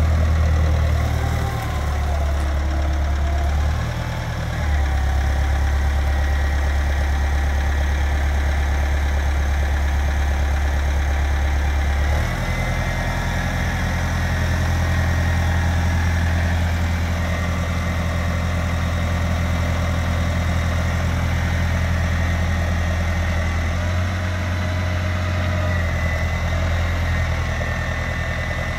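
Balkancar 3.5-tonne diesel forklift engine running steadily, its note changing pitch a few times as the truck is driven and its forks are lifted.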